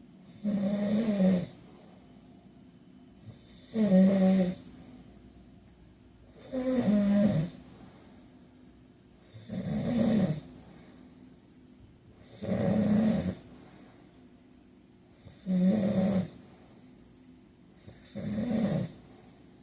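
A man snoring in his sleep: seven even snores about three seconds apart, each a pitched buzz about a second long.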